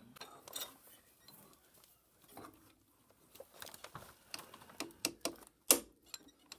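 Scattered light clicks and taps of hand tools on metal, the loudest a little before the end.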